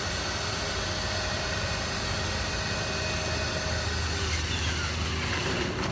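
Sharper Image centrifugal juicer running steadily, its motor whirring as it grinds ripe star fruit fed into the top chute.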